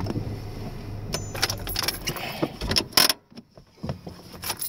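Truck engine running in the cab, mixed with clicks and keys jangling; the engine sound stops after a sharp click about three seconds in.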